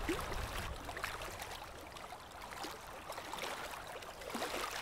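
Faint background ambience: a soft even noise with scattered small clicks and ticks, a little louder at the start and again near the end.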